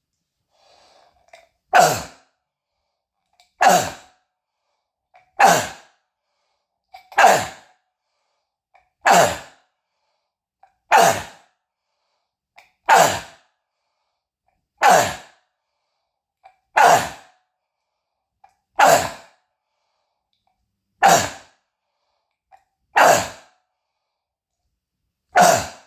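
Croup cough: thirteen loud, sharp single coughs, evenly spaced about two seconds apart, each dying away quickly.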